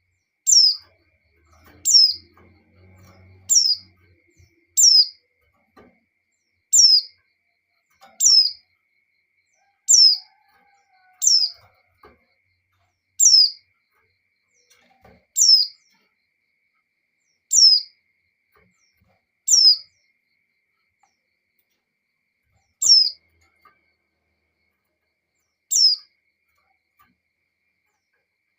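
Female white-eye (pleci) giving a lone call note over and over, each a short high note sliding down in pitch, about fourteen in all, one every one to three seconds with the gaps growing longer after the middle. It is the call a female in breeding condition uses to draw a male.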